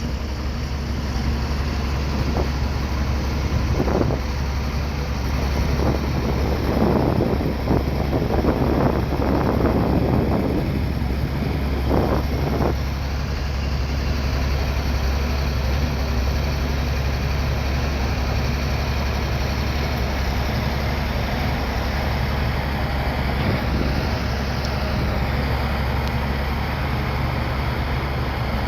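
Bulldozer's diesel engine running steadily with a deep hum. For the first twelve seconds or so, irregular clanks and scrapes from the machine at work sound over it.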